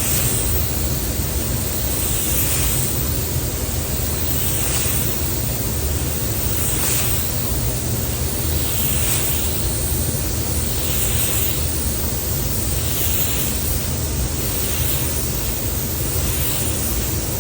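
Automotive paint spray gun hissing as it lays a wet coat of waterborne basecoat, swelling about every two seconds as it sweeps back and forth, over a steady rush of air.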